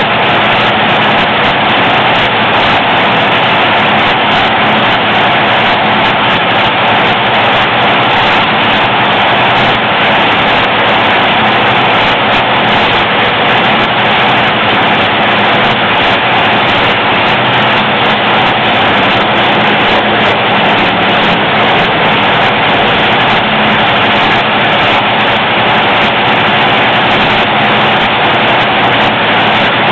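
Top Fuel dragster's supercharged nitromethane Hemi V8 running in the pits at a steady speed during its warm-up, very loud and unchanging.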